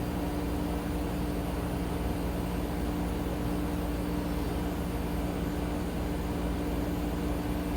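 Steady mechanical hum, a constant low drone with a few unchanging tones over even hiss.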